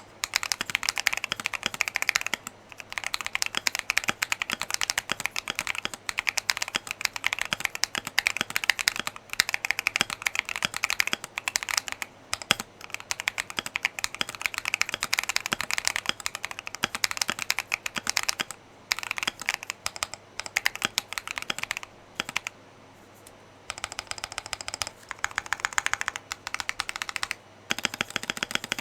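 Continuous fast typing on a Keychron Q1 mechanical keyboard with AKKO Lavender Purple tactile switches and PBT keycaps: a dense stream of key clacks broken by a few short pauses, the longest about a second past the middle.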